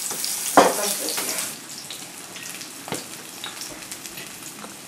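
Dishes, glasses and cutlery clinking and knocking on a laid dinner table as a family eats, with one sharp knock just over half a second in and a lighter click near three seconds. A steady hiss underneath stops about a second and a half in.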